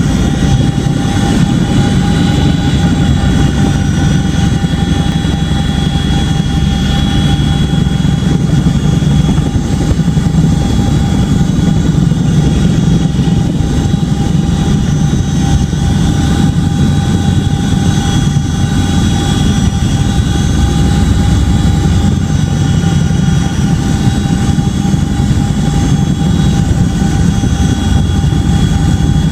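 Boeing CH-47D Chinook tandem-rotor helicopter running steadily and loud: a rapid beat from its rotors under a steady high whine from its twin turboshaft engines.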